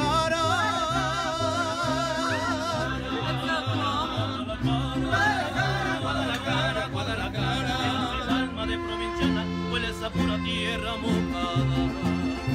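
Mariachi-style Latin American song: a singing voice with wide vibrato over guitars and a steadily moving bass line.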